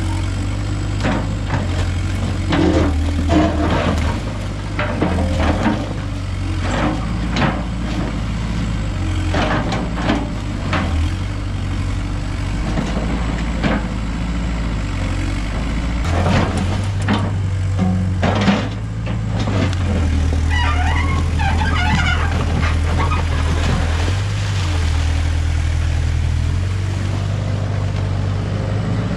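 Case Poclain 688 tracked excavator's diesel engine running under changing hydraulic load as the bucket digs into the stonework of an old bridge. Repeated knocks and clatter of the bucket against stone and rubble come through most of the first twenty seconds, after which the engine runs more steadily.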